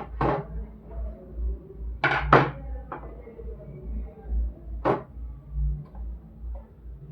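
Sharp knocks and clicks of an electric kettle's plastic and metal parts being handled as it is taken apart: about five, the loudest a close pair about two seconds in.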